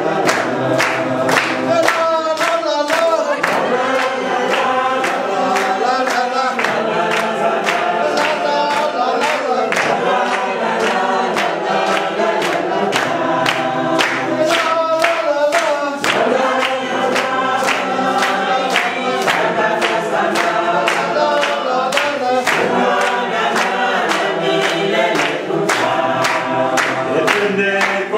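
A group singing together, with steady hand-clapping on the beat at about two claps a second.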